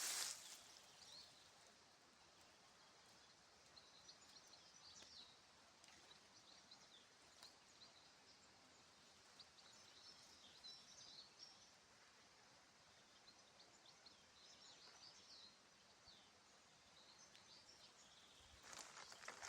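Faint, scattered chirping of small birds over a quiet background, with louder rustling starting near the end.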